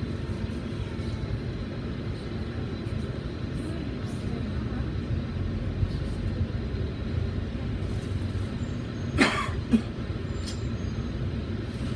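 Cabin rumble of a Volvo B9TL double-decker bus's diesel engine and running gear, steady while it waits at a light, then pulling away and turning. Near the end there are two short, sharp sounds about half a second apart.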